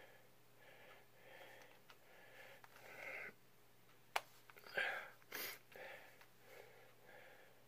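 A man's heavy, wheezy breathing in slow, even swells while he strains at a child-resistant press-and-turn bottle cap. A single sharp click comes about four seconds in, followed by two louder hissing puffs of breath.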